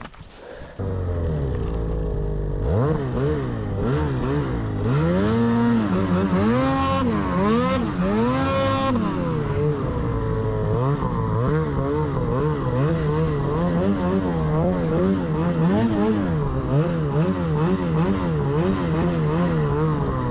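Snowmobile engine starts about a second in, then revs hard and unevenly, its pitch rising and falling over and over, roughly once a second later on, as the sled works through deep powder.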